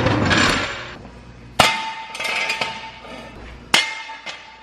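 Two sharp metallic clangs about two seconds apart, each ringing on for a second or more, as from a hammer striking metal.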